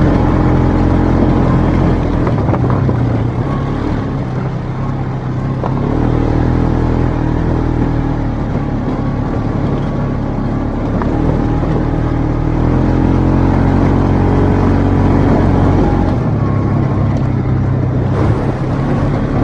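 Polaris RZR side-by-side's engine running under load as it is driven off-road, its note rising and falling with the throttle and changing pitch several times.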